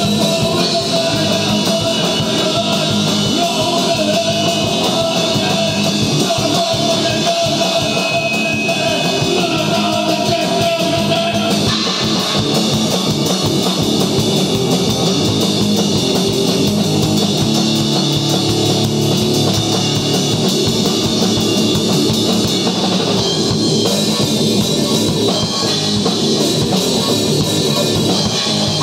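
A rock band playing live and loud in a small room: drum kit with crashing cymbals and guitar. The music changes to a new section about twelve seconds in.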